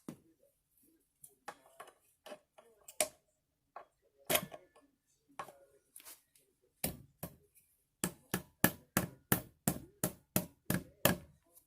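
Hand tools knocking and clicking on a driveshaft hanger bearing assembly: scattered knocks at first, then from about seven seconds in a fast, even run of strikes, about five a second.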